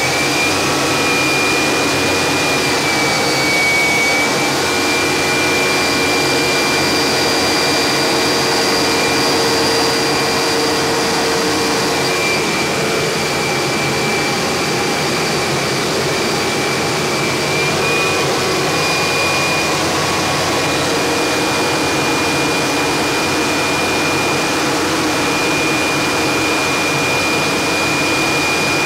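Harrier's Rolls-Royce Pegasus jet engine running at speed, heard inside the cockpit as a steady loud rushing noise with a high whine on top that wavers slightly in pitch.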